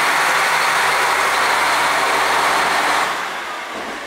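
Diesel engine of a JR Hokkaido Kiha 40-series railcar running under power as the train pulls away from the station right below. The sound is loud and steady, then falls away about three seconds in as the last car draws off.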